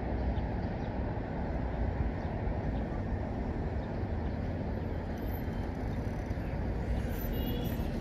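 Steady low rumble of road traffic, with a few faint, short high tones in the second half.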